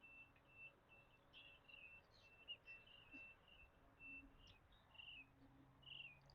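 Near silence with faint, scattered bird chirps, and a faint low hum in the second half.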